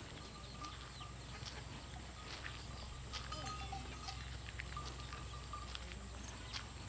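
Outdoor countryside ambience: scattered short animal calls and chirps over a steady low rumble.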